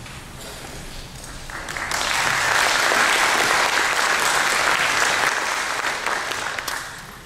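Audience applauding in a large hall, building up about a second and a half in and fading near the end.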